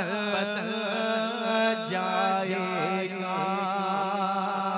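A man singing an Urdu naat, drawing out one word in a long, ornamented held note that wavers up and down, over a steady low drone.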